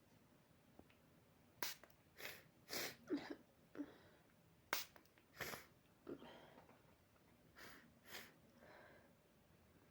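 A person's faint, quick sniffs and sharp hitching breaths: about a dozen short breathy bursts, a few with a slight catch of voice. This is the build-up to a sneeze set off by inhaled body spray.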